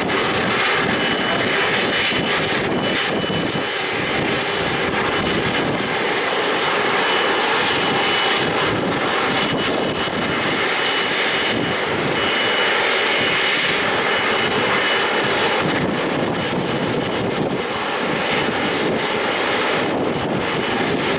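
Jet airliner engines running steadily: a constant, loud engine noise with a thin high whine through it.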